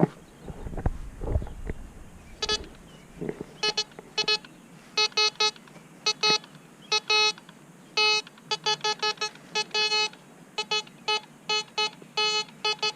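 Metal detector sounding a buzzy, steady-pitched beep in many short bursts of uneven length, signalling metal under the coil. A few low thumps come before the beeping starts.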